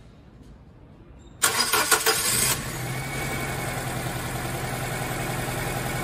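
Car engine cranked by the starter, catching about a second and a half in after a loud burst, then settling to a steady idle. It runs with cylinder 4 dead, its injector unplugged and getting no control signal from the ECM: the cause of the cylinder 4 misfire.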